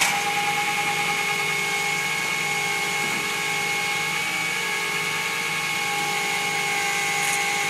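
A rollback tow truck's hydraulic winch running under load, a steady whine over the truck's engine, as it pulls a vehicle up the tilted bed.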